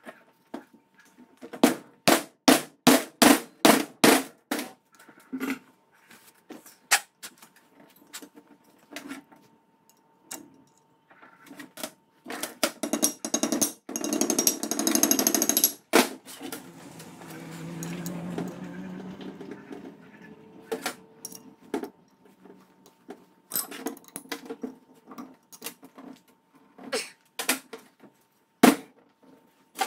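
A wooden block struck with a quick, even run of hard blows, about three a second, seating a part of a chain-drive spool through a cloth. Later comes a longer clattering stretch and scattered knocks of metal drive parts handled on a steel workbench.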